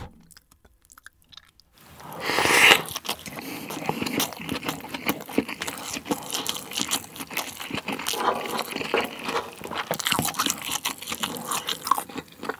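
A mouthful of bulgogi fried rice with seaweed flakes being chewed close to the microphone: many small wet clicks and crunches. It starts about two seconds in with a louder swell, after a near-silent moment.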